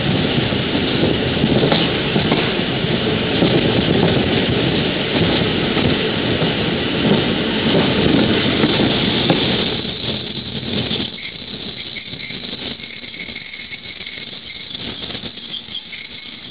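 Steady noise of a train running on the line, which drops off about ten seconds in, leaving a quieter rattle with a faint high squeal that comes and goes.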